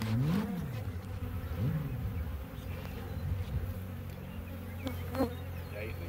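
Honey bees buzzing around an open hive, a steady low hum whose pitch rises and falls twice in the first two seconds as bees fly close by. A few light clicks about five seconds in.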